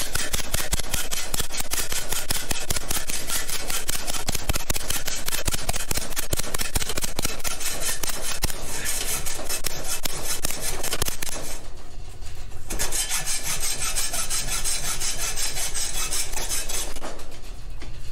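Hacksaw cutting through a metal exhaust inlet pipe on an old mower muffler held in a vise, in steady back-and-forth rasping strokes, with a short pause about twelve seconds in and another near the end.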